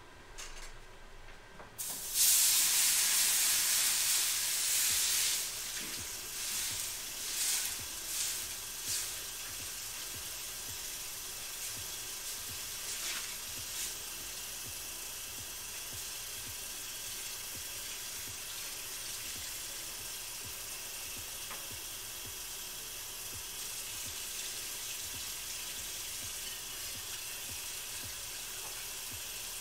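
Water hitting a hot cooking pan during cleanup: a loud hiss of steam about two seconds in, several shorter sputtering spurts, then a steady, quieter sizzle.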